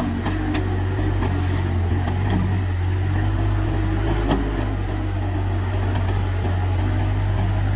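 Bobcat S130 skid steer loader's diesel engine running steadily under work, with a wavering mid-pitched whine over the low hum. Scattered sharp knocks sound throughout, the loudest about four seconds in.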